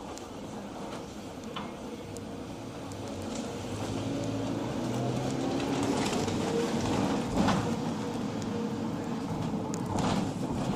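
Mercedes Sprinter minibus engine heard from inside the cabin, pulling away: it grows louder and rises slightly in pitch a few seconds in. Two sharp knocks come, one past the middle and one near the end.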